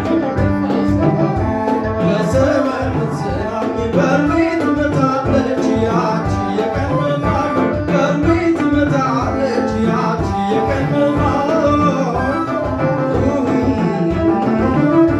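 Live Ethiopian traditional music played through a PA: a man singing into a microphone over a steady beat on a row of hand drums, with traditional string instruments.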